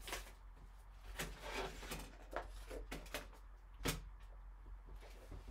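Light, scattered clicks and scrapes of a rigid plastic card top-loader handled by gloved hands, about half a dozen sharp ticks spread out.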